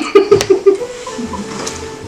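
Women laughing: a quick run of short laughing bursts in the first second, then softer giggling.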